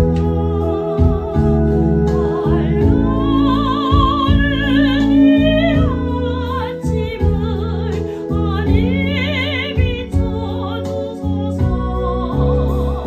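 A gospel song: a high melody line with wide vibrato over sustained keyboard-like accompaniment chords. The vibrato melody comes in two long phrases, the second shorter.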